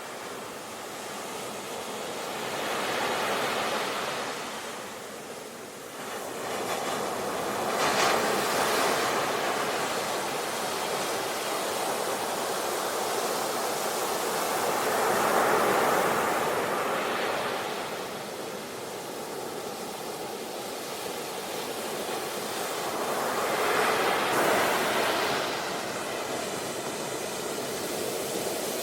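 Sea waves breaking and washing onto the shore, swelling and ebbing in slow surges, with louder breakers about 3, 8, 16 and 24 seconds in.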